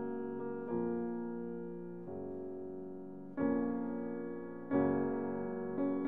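Background music: slow piano chords, a new chord struck about every second and a half and left to ring and fade.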